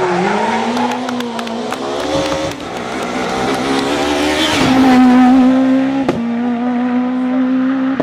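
Rally car engine working hard along a stage: its pitch climbs and shifts through gear changes, then holds steady at high revs from about halfway. Several sharp cracks cut through, one standing out about six seconds in.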